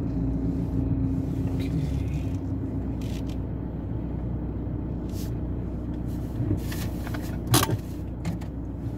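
Car engine and cabin hum, heard from inside the car as it creeps forward at low speed: a steady low drone. A few brief clicks are scattered through it, with a sharper knock about seven and a half seconds in.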